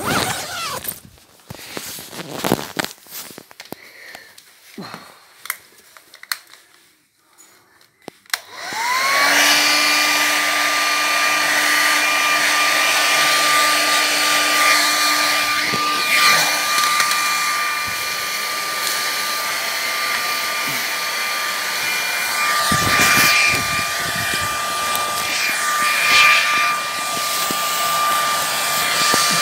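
Scattered handling and fabric rustles for about eight seconds, then a hand-held air dryer switches on. Its motor whine rises quickly to a steady high pitch and it keeps running, blowing over nylon tent fabric.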